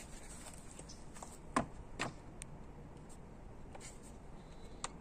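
Two sharp knocks about a second and a half and two seconds in, with a few fainter clicks later, from handling a Craftsman cordless reciprocating saw as it is brought up to pallet boards; the saw is not running.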